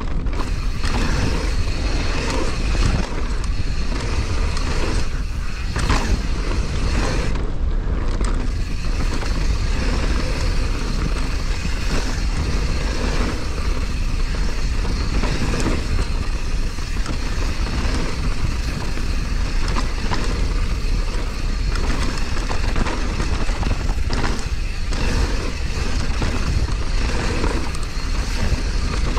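Mountain bike descending a rough downhill trail at speed: a continuous, loud, rushing rumble of tyres on dirt and rock, with chain and suspension rattling over the bumps and wind noise on the bike-mounted or helmet camera's microphone.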